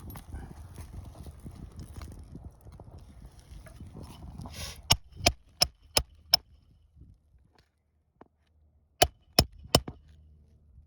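Hammer driving roofing nails into shingles: five quick blows about three a second, then after a pause three more. Before the blows, rustling of shingles being handled.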